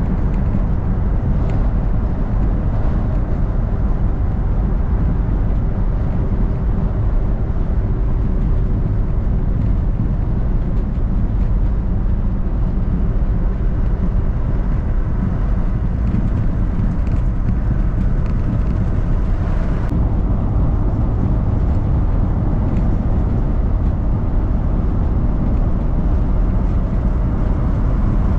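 Steady low rumble of a road vehicle on the move: engine, tyre and wind noise running without a break.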